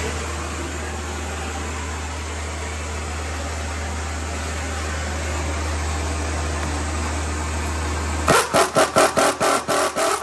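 Steady roar, most likely the torch heating the seized sway-bar link nut. About eight seconds in it stops, and an air tool runs in about ten quick, short bursts to spin the stubborn nut off.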